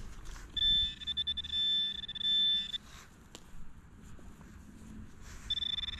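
Garrett handheld pinpointer sounding its high electronic alert tone in pulses for about two seconds, then again about five and a half seconds in, as it picks up a buried bottle cap. A single faint click comes between the two alerts.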